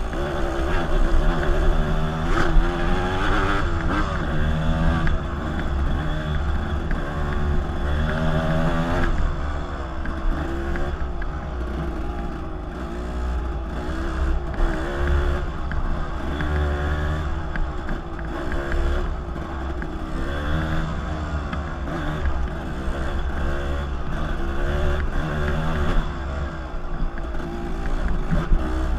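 Dirt bike engine running, its revs rising and falling again and again with the throttle, over a steady low rumble.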